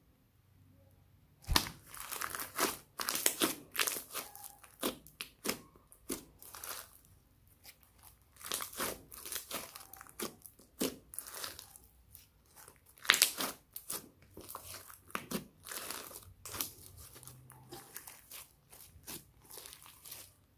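Thick slime studded with small beads being squeezed, stretched and pressed by hands, giving dense, irregular sticky clicks, pops and crackles. The sound starts about a second and a half in.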